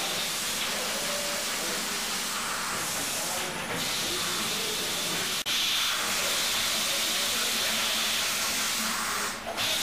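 Steady hiss of noise, broken by short dips about three and a half seconds in and near the end, and an abrupt cut about five and a half seconds in, after which it is slightly louder.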